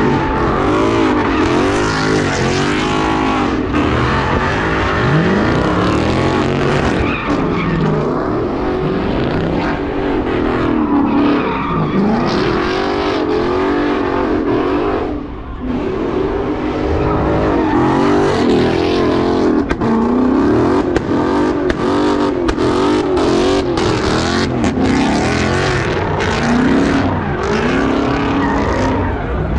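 A car's engine revving hard and falling again, over and over, as it spins its tyres through burnout donuts. The loudness dips briefly about halfway through.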